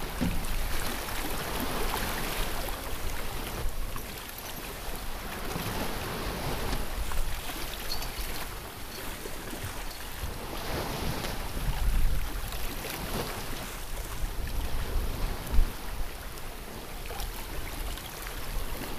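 Wind buffeting the microphone over the rush of sea and waves around a sailboat under way offshore, swelling and easing with the gusts. There is one brief louder gust or knock about three-quarters of the way through.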